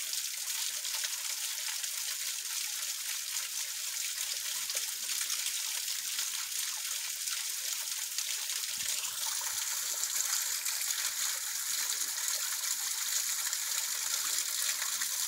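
Small waterfall trickling and splashing down a rock face into a shallow pool: a steady hiss of falling water, which becomes slightly fuller and louder about nine seconds in.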